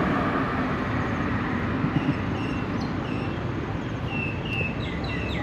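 Steady vehicle rumble, with a run of short high chirps in the second half.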